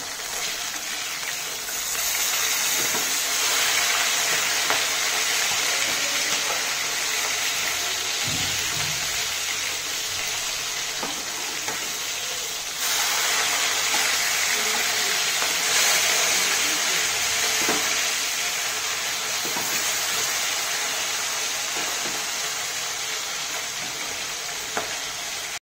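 Rohu fish steaks sizzling in hot oil as they shallow-fry in a kadhai, with light scrapes and taps of a steel spatula against the pan as the pieces are turned over. The sizzle gets louder about two seconds in and again about halfway through.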